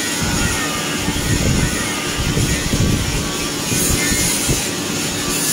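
Charcoal forge fire under a blower's steady air blast, a continuous rushing noise with a low steady hum, as a knife blade heats up for hardening.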